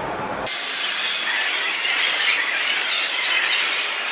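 Train's steel wheels screeching on the rails: a wavering high-pitched squeal over hiss, starting abruptly about half a second in.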